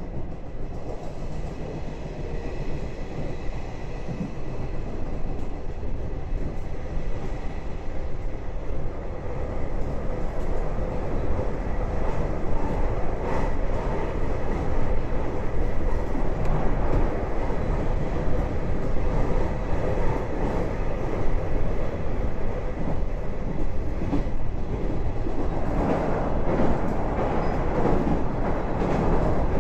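Passenger train running along the track, heard from inside the carriage: a steady rumble of wheels and running gear that grows louder about twelve seconds in and fuller again near the end.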